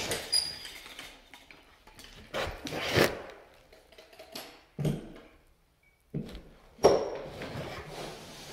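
Drywall flat box and its handle clanking and knocking several separate times, with quieter gaps between; the loudest knocks come about three seconds in and near the end.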